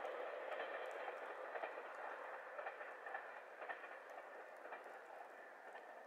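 Diesel train running on the rails and growing steadily fainter, with faint scattered clicks of the wheels over the track.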